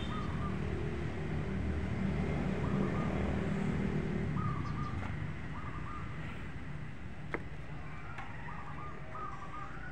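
Outdoor ambience: a motor vehicle's engine hums steadily for the first four seconds or so and then fades. Short bird chirps repeat through it, and there is a single sharp click a little past seven seconds in.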